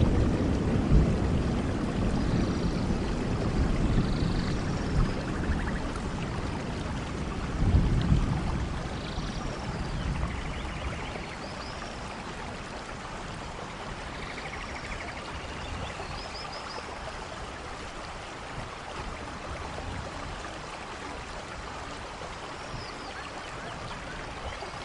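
Rainforest thunderstorm: steady rain falling, with low thunder rumbling at the start and again briefly about eight seconds in, then dying away to rain alone. Faint short high chirps sound now and then over the rain.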